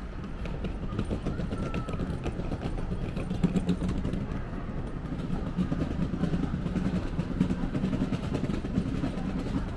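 City street ambience heard while walking along a sidewalk: steady traffic noise with a low engine hum that grows stronger about three seconds in.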